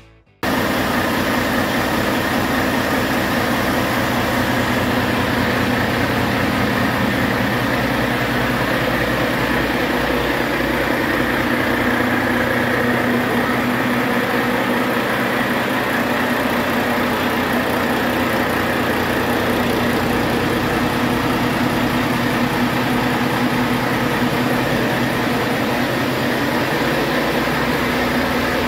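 Volvo D13M inline-six diesel engine running steadily on a test stand, its speed and loudness holding even throughout, during a test run of a used engine.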